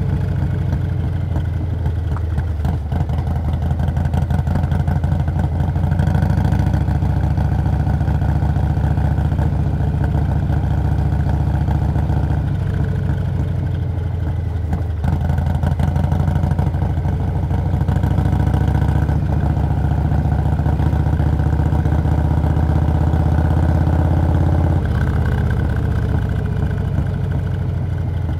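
Stage 2 Harley-Davidson Milwaukee-Eight 117 V-twin on a Low Rider S running under way. Its note steps up and down several times, with a brief dip about fifteen seconds in.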